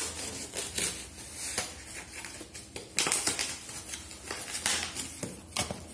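Cardboard packaging being handled: irregular scrapes, rubs and light knocks as a tight-fitting box insert is worked loose, the strongest burst of scraping about halfway through.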